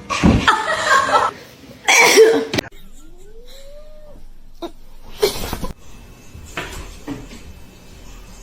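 Domestic cat making harsh, loud calls twice in the first few seconds, then a soft rising meow, followed by a few shorter noises.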